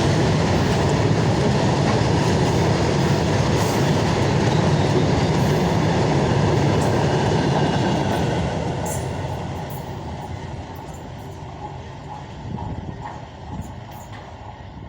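Freight train passing at speed, a steady rumble with wheels clattering over the rail joints, fading away about eight seconds in as it moves off.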